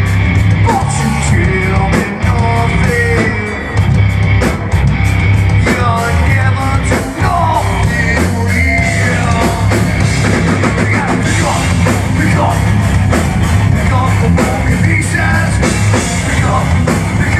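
Heavy metal band playing live through a club PA: distorted electric guitar, bass and drums with a sung lead vocal, loud and steady throughout.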